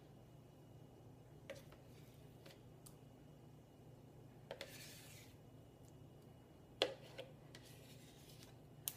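Faint scraping of a utensil inside a plastic tub of Greek yogurt, working the last of the yogurt out, with a few sharp clicks of the utensil against the tub; the loudest click comes about seven seconds in.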